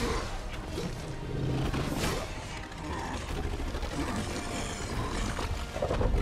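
Dramatic film score mixed with battle sound effects: a sharp crash at the start and another about two seconds in, over a deep rumble that swells louder near the end.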